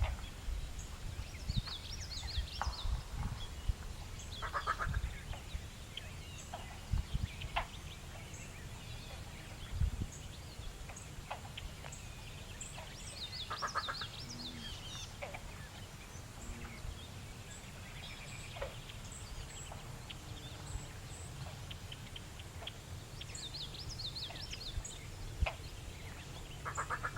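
Least bittern calling: a rapid run of short, evenly spaced notes, repeated about every ten seconds. Other birds chirp higher-pitched between the calls, over a low rumble.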